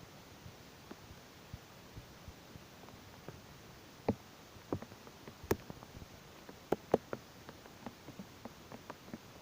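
Rain falling as scattered, irregular drops tapping on a surface over a faint steady hiss, the taps coming thicker and louder from about four seconds in.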